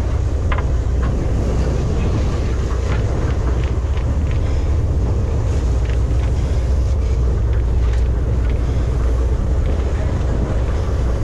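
Steady low rumble of wind buffeting the microphone over a sportfishing boat's engine, with a few faint ticks.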